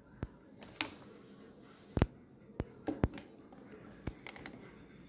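Handling noise: a few irregular sharp clicks and light knocks, the loudest about two and three seconds in, as a brass clock movement and the camera are moved about on a table.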